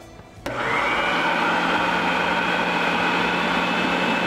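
Small countertop food processor switching on with a click about half a second in, spinning up, then running steadily with a motor hum, mixing Greek yogurt into chopped cucumber and garlic for tzatziki.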